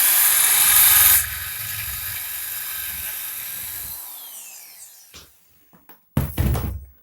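Electric drill boring a hole in a wooden floorboard. It runs loudest for about the first second, then drops to a steadier, quieter whir, and spins down with a falling whine about four seconds in after the trigger is released. A short burst of rustling handling noise comes near the end.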